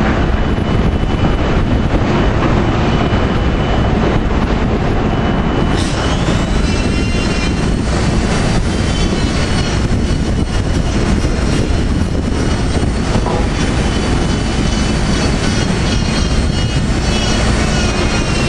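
Steady drone of heavy plant machinery. About six seconds in, an electric angle grinder starts and runs on with a high whine, grinding the rubber conveyor belt to prepare the splice.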